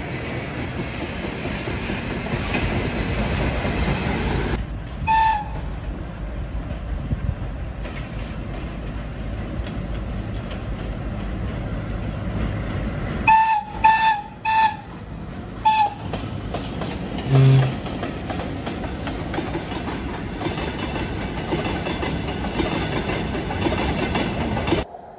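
Freight train rolling past with steady wheel and wagon rumble. The VL10 electric locomotive's T9 typhon sounds in short signal blasts: one brief high toot about five seconds in, a burst of several high toots around thirteen to sixteen seconds, and a single short lower blast just after.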